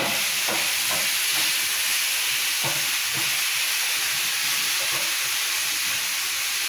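Food frying in a little oil in a pan, a steady sizzle with a few faint crackles; it cuts off abruptly at the end.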